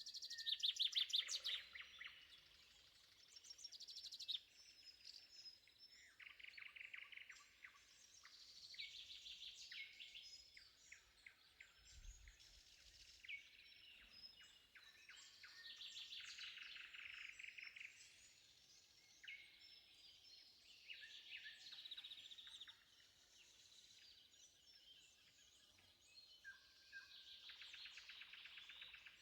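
Dawn chorus of several songbirds, among them a shrike and a nightingale, singing phrases of rapid trills and chirps that come every few seconds and overlap. The loudest phrase comes about a second in.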